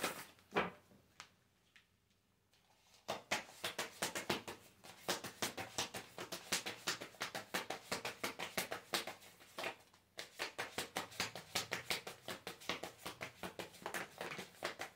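A deck of tarot cards being shuffled by hand: a quick, dense run of soft card flicks and slaps, starting about three seconds in and pausing briefly about ten seconds in.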